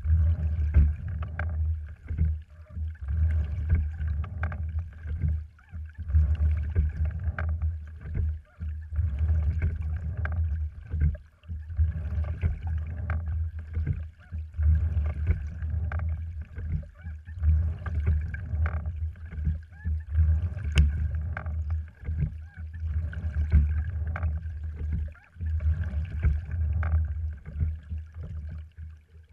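A sliding-seat rowing wherry with a cedar frame and cloth skin being rowed: water rushes and gurgles along the hull with a low rumble, and light knocks come from the oars working in their oarlocks. The sound surges and falls back with each stroke, every few seconds.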